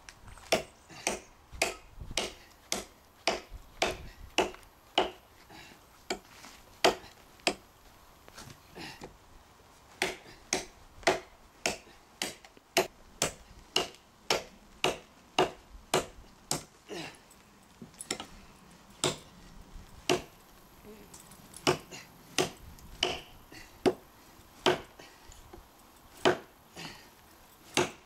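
Cold Steel Trail Hawk tomahawk chopping into a hard, seasoned elm log: a steady run of sharp chopping strokes, about two a second, with a short pause roughly a third of the way through.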